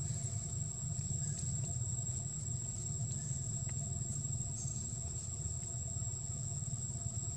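A steady high-pitched insect drone over a steady low rumble, with a few faint clicks.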